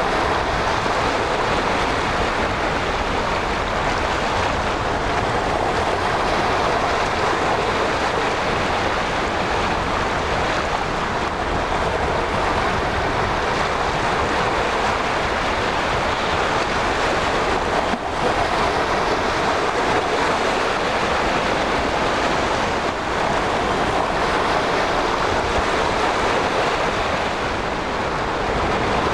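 Steady rushing noise of sea and wind, with wind buffeting the microphone.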